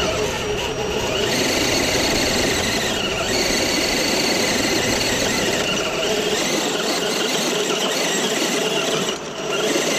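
Scale RC crawler's electric motor and gears whining as the truck strains against the rock, over a steady rushing noise.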